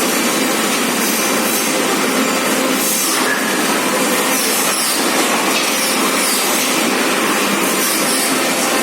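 Forklift engine running steadily, a dense even mechanical noise with faint hums in it.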